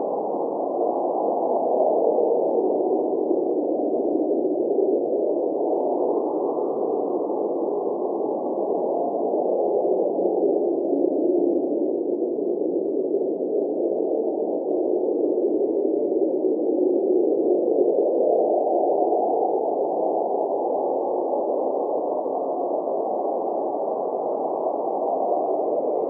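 Cold winter blizzard wind blowing: a steady, low, muffled rush that slowly rises and falls in pitch every several seconds.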